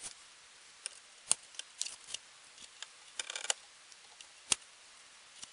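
Plastic mounting clips being pressed onto the corners of a plastic Metra dash bezel: a scattered string of sharp plastic clicks and snaps with light handling rattle, a quick cluster about three seconds in and the loudest snap about four and a half seconds in.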